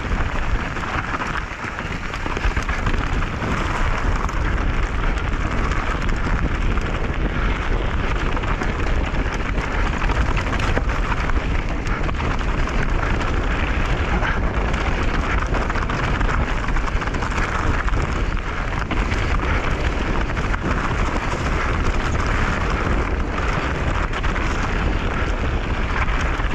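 Mountain bike descending a dirt trail at speed: continuous tyre noise on dirt and stones with frequent knocks from bumps, under heavy wind rumble on the microphone.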